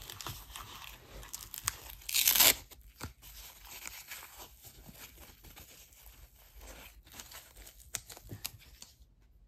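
Packaging being torn and crinkled open by hand to unwrap a piece of jewelry: continuous rustling with small clicks, and one loud rip about two seconds in.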